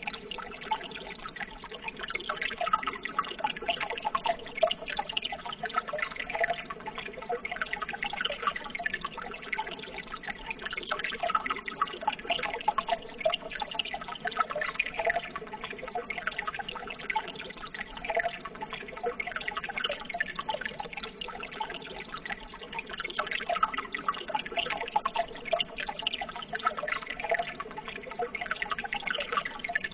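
Running water trickling and splashing steadily, full of small droplet and bubbling sounds, with no let-up.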